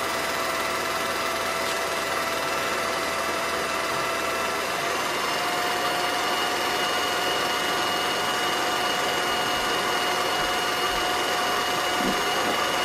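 Film projector running steadily: a constant mechanical whirr with several steady hum tones over hiss.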